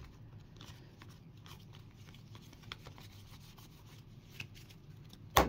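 Faint rustling and light clicks of trading cards being handled and sorted, with a single sharp knock near the end.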